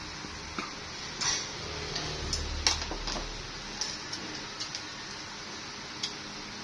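Scattered light clicks and taps of chopsticks against ceramic rice bowls and plates while eating, over a steady background hiss. A brief low rumble comes about two seconds in.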